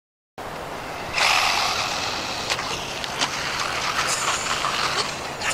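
Small brushless electric RC monster truck driving: a steady rushing noise that grows louder about a second in, with a few sharp clicks.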